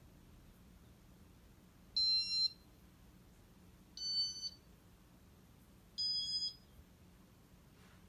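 Three electronic beeps from a Casablanca ceiling fan's control board, about two seconds apart, each about half a second long and each a little higher in pitch than the last.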